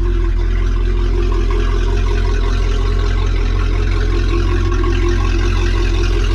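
MerCruiser 5.7 V8 sterndrive engine idling steadily with the boat out of the water on a hose-fed flushing muff. It is running on fresh water to flush the descaling fluid out of the cooling system.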